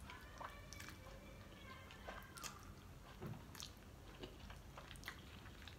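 Faint mouth sounds of a person eating soft instant ramen noodles: a slurp at the start, then quiet chewing with scattered small clicks and smacks.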